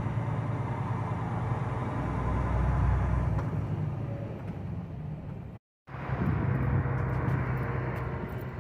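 Truck engine running with a steady low rumble as the truck moves slowly, heard from inside the cab. The sound cuts out for a moment about two thirds of the way through, then a similar rumble goes on.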